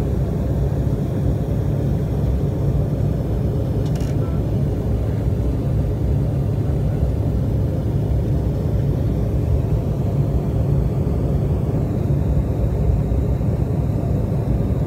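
Jet airliner cabin noise in the climb after takeoff: a steady low rumble of the engines and rushing air, with one brief click about four seconds in.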